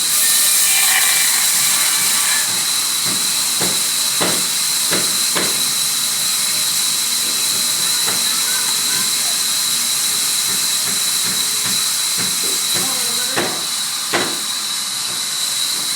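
Sawmill saw cutting wood, giving a steady high hiss with a high whining tone over it. Several sharp knocks come through: a few in quick succession about four seconds in, and two more near the end.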